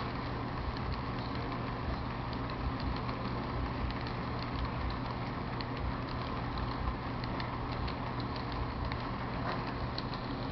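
Model freight train rolling along the layout track: a steady running rumble with a constant low hum and rapid light clicks of the wheels over the rail joints.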